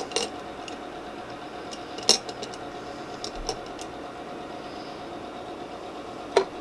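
A steady low hum with a few light clicks and taps as a face-paint palette and makeup tools are handled. The sharpest click comes about two seconds in, and another comes near the end.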